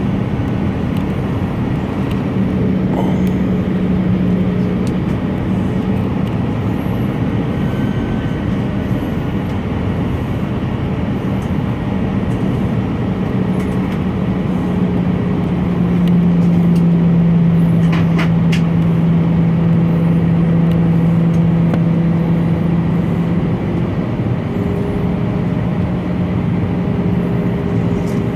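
Jet engine and airflow noise inside the cabin of an S7 Airbus A319 during descent: a steady rush with a low engine hum. About halfway through, the hum drops slightly in pitch and gets a little louder.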